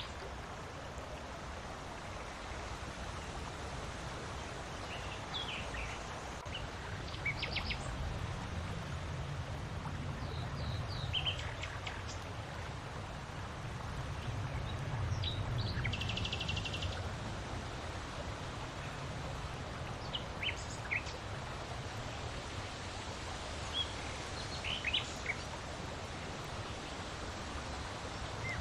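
Wind blowing steadily, its low rumble swelling through the middle, with birds chirping in short repeated notes now and then.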